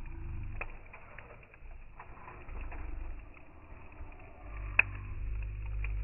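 Wood fire burning in a metal fire pit, heard in slowed-down slow motion: a low, steady rumble of the flames with a few scattered crackles and one sharp pop about five seconds in.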